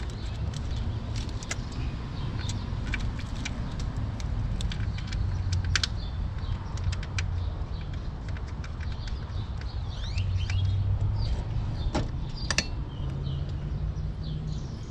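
Scattered sharp clicks and rattles of hands working on engine wiring connectors and parts in a car's engine bay, over a steady low rumble. A few bird chirps come in about ten seconds in.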